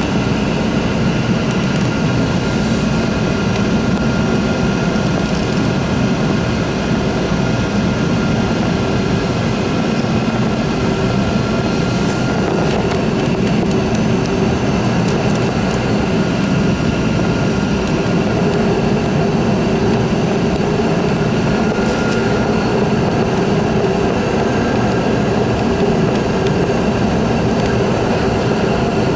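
Steady cabin noise inside a Boeing 717-200 on final approach: its two rear-mounted Rolls-Royce BR715 turbofans and the rushing airflow give a constant rumble with a steady whine over it.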